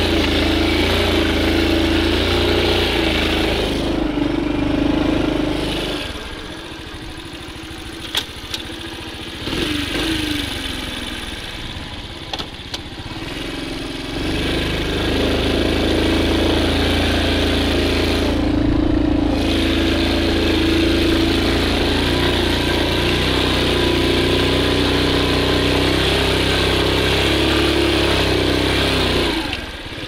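Honda Super Cub C50's 49 cc four-stroke single-cylinder engine running under way. It drops quieter for several seconds about a fifth of the way in, with a few sharp knocks, then comes back up to a steady run. It dips briefly again near the end.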